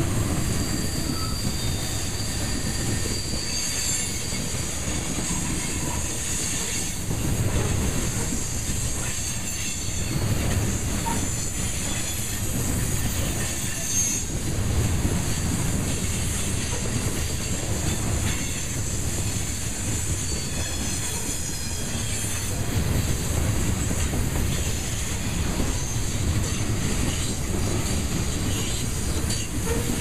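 Covered hopper cars of a grain train rolling past, a steady heavy rumble of steel wheels on rail with faint high wheel squeal coming and going.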